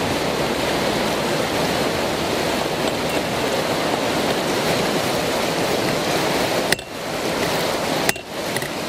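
Rushing white water of a river rapid, a steady loud noise, dropping sharply in level twice near the end, each time with a click.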